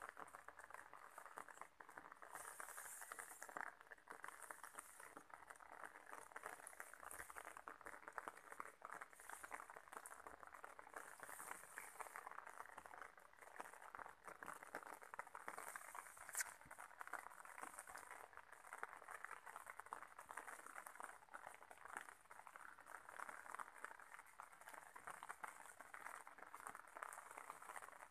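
Faint, steady watery patter with a fine crackling texture.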